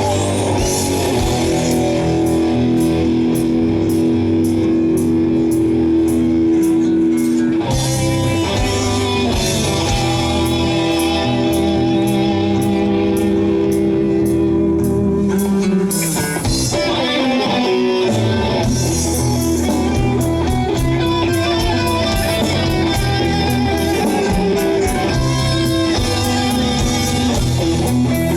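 Live rock band playing an instrumental passage: electric guitars over bass and drums with a steady beat. The bass drops out for about two seconds just past the middle, then comes back in.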